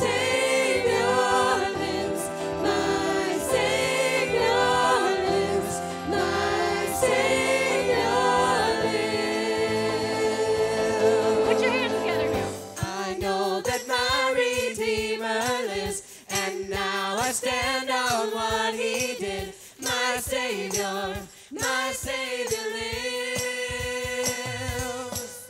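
A group of voices singing a contemporary praise song together over instrumental accompaniment; about halfway the backing thins out to a sparser accompaniment with a steady beat.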